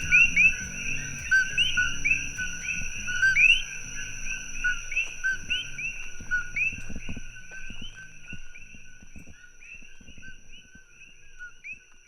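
A dense chorus of coqui frogs, many overlapping two-note 'ko-KEE' calls with an upward-rising second note. The chorus fades out toward the end, with soft background music under it early on.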